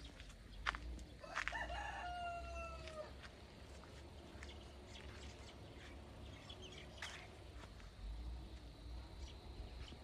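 A rooster crowing once, one drawn-out call of about a second and a half that slides slightly down in pitch at the end. A few sharp clicks and a low rumble run underneath, with the loudest click just before the crow.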